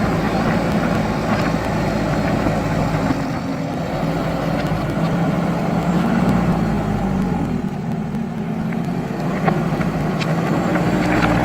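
JCB backhoe loader's diesel engine running, its pitch rising and falling a little as the load changes, with a few faint clicks over it.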